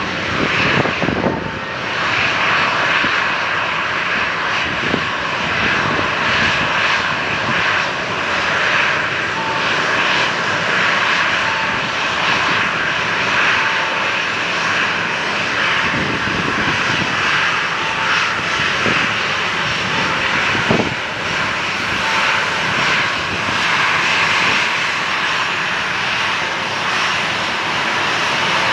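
Boeing 737-800's CFM56 turbofan engines at taxi power: a steady jet rush and whine that holds even as the airliner taxis in.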